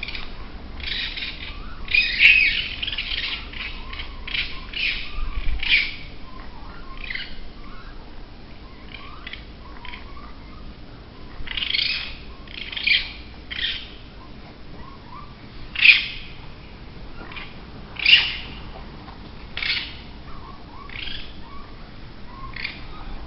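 Harsh, hissing screeches from an animal, repeated at irregular intervals, each lasting well under a second; some come in quick runs and others stand alone.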